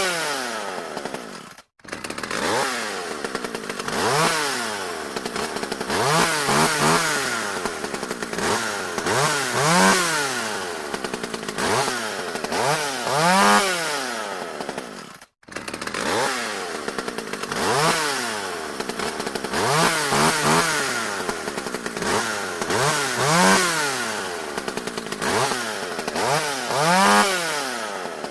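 Chainsaw engine revved up and down over and over, each rev rising and falling in about a second. The sound cuts out briefly twice, about two seconds in and again about fifteen seconds in.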